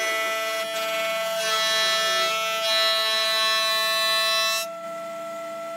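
Marunaka thickness planer cutting a hardwood slab: a steady high whine from the machine under a dense hiss of the cutterhead shaving the wood. Near the end the cutting hiss stops and the planer's whine carries on alone.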